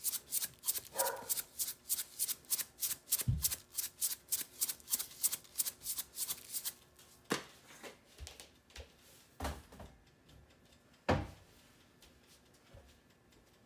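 Garlic salt shaker shaken in a steady rhythm, about three to four shakes a second, stopping about seven seconds in. After that come a few separate knocks, the loudest about eleven seconds in.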